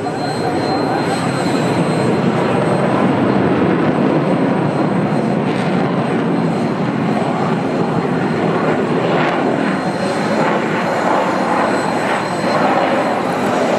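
F-16 fighter's jet engine running in flight, a loud, steady roar that swells slightly about a second in.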